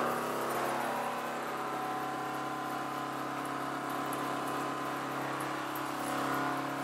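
12-volt RV water pump running with a steady hum, together with the hiss of water spraying from the shower head of a propane on-demand water heater set-up that is running.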